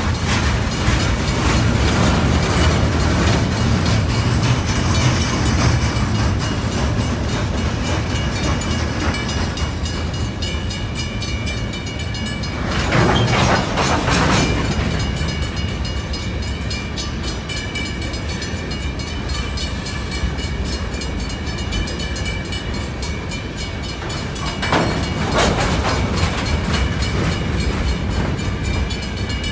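Freight train cars (covered hoppers and gondolas) rolling past a grade crossing: a steady rumble with fast wheel clatter over the rails. It swells louder twice, about halfway through and again near the end.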